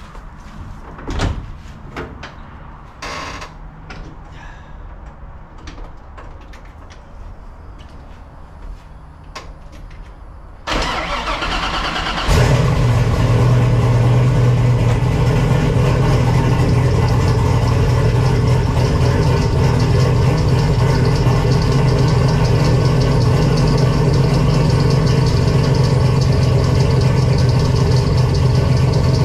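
Turbocharged 6.0-litre Chevy LS V8 being started about eleven seconds in, catching and settling into a steady idle after a few faint knocks. This is the first run after a power steering pump replacement, to check that the serpentine belt runs true on the new pulley.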